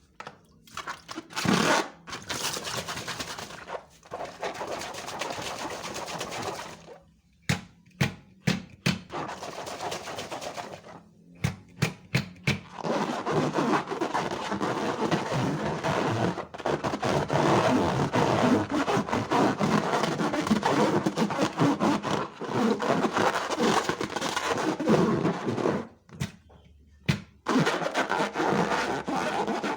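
Slime being handled: squished, pressed and stretched by hand, a sticky crackling with many sharp clicks and pops. It comes in bursts with short pauses, and runs unbroken through most of the second half.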